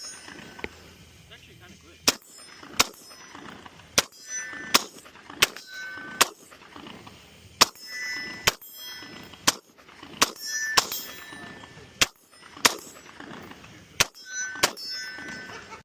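Gunfire: about sixteen single shots at an irregular pace of roughly one a second, several of them followed by a short metallic ring.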